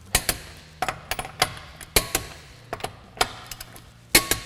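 Torque wrench clicking on a wheel's lug nuts as they are tightened to 80 foot-pounds: sharp clicks, often two close together, every half second to a second.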